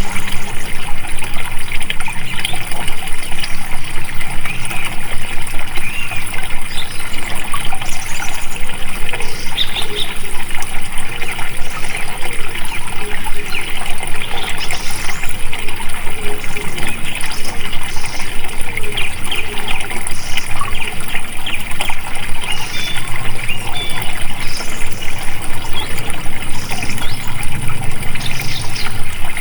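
Flowing water running steadily, with no break or change.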